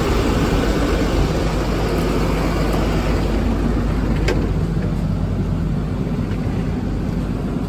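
Steady low rumble of a parked Snap-on tool truck running, with a single sharp click about four seconds in.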